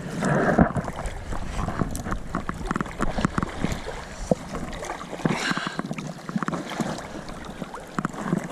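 Water splashing and sloshing close to the microphone with irregular knocks, as a large rainbow trout thrashes in a landing net.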